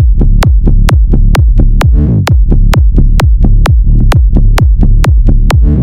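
Minimal techno music: a fast, even kick-drum beat over a heavy bass line, with a brief swept effect about two seconds in and another near the end.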